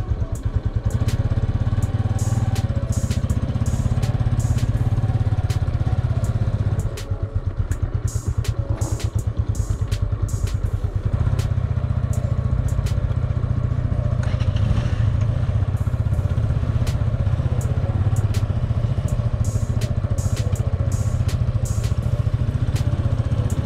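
Ssenda motorcycle engine running while riding, with many short clicks and knocks over it. The engine eases off for a few seconds about a third of the way through, then picks up again.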